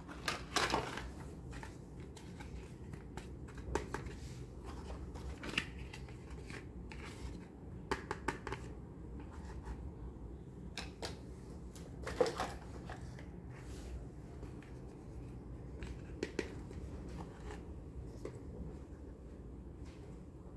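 Small plastic toy kitchen pieces (pots, lids and toy stove tops) being handled and set down, giving scattered light plastic clicks and taps, the sharpest about twelve seconds in.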